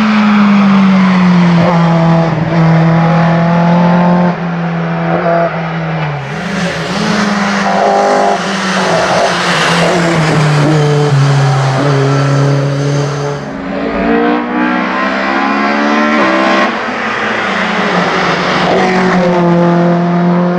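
Opel Kadett C Coupé hillclimb race car with a 16-valve four-cylinder engine running hard at full throttle. The engine note holds high, then dips sharply and picks up again several times through the climb.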